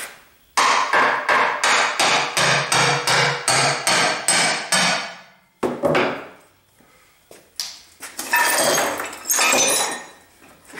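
Hammer blows on the cover of an Atlas Copco LE20 compressor pump, a fast run of ringing metal strikes at about three or four a second, knocking loose a cover held by the shattered piston inside. Later comes a single knock, then a stretch of metal clattering and clinking as the cover comes off.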